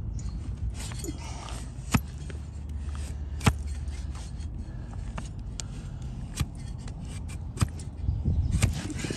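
A farrier's push knife (hoof shovel) paring horn from a donkey's hoof sole on a wooden block: scraping cuts through the horn with several sharp clicks spaced a second or more apart, over a steady low rumble.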